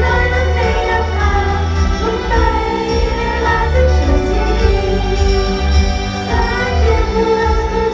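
Female idol group singing a pop song into microphones over a backing track played through stage PA speakers, with heavy bass.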